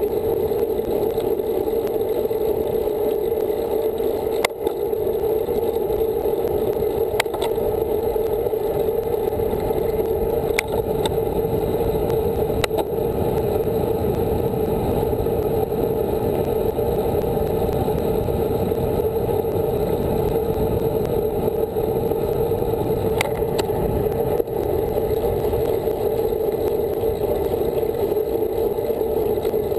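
Steady rushing wind and road noise on a handlebar-mounted camera as a road bike rolls along, broken by a handful of short sharp clicks and knocks from the bike and mount over the road surface.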